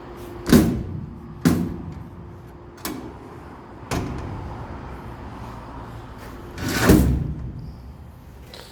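Doors or lids of a stainless steel camping-car toolbox being opened and shut: five separate bangs and knocks, the loudest in the first second and another near the end.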